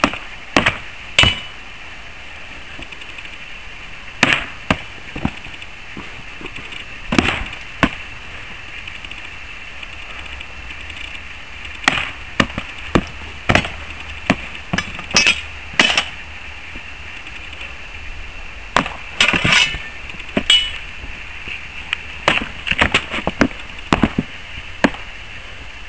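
Swords striking each other and wooden shields in a sword-and-shield bout: irregular flurries of sharp clangs and knocks with a metallic ring, clustered in quick exchanges separated by pauses of a few seconds.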